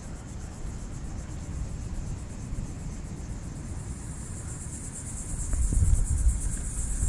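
Steady, high-pitched buzz of an insect chorus, with a low rumble underneath that grows louder about five and a half seconds in.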